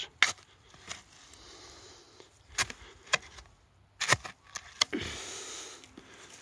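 Garden spade working dry, crumbly soil around a grapevine's base: several short, sharp knocks of the blade, then a stretch of soft scraping.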